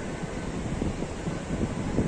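Wind buffeting the microphone: a steady rushing noise with irregular low rumbling gusts.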